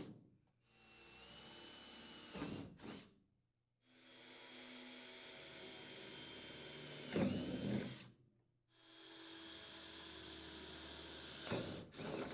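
Cordless drill/driver running a 3/16-inch bit through the metal sides of a wall sleeve to drill pilot holes. There are three separate runs, each steady, then louder near its end as the bit cuts through, with short silent gaps between.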